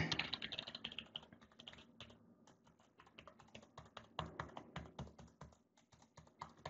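Typing on a computer keyboard: quick runs of keystrokes, with a sparser stretch of about two seconds in the middle.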